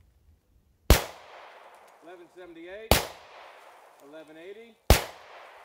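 Three shots from a Glock Model 40 10mm pistol with its stock 6-inch barrel, firing 180-grain Browning X-Point rounds about two seconds apart. Each shot trails off in an echo.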